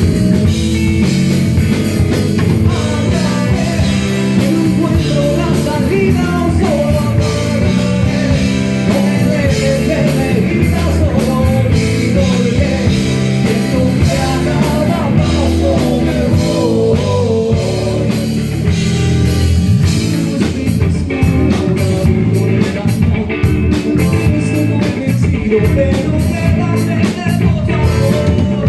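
A rock band's song playing, with electric guitar and a drum kit. A wavering melody line runs through the middle, and steady drum strokes stand out near the end.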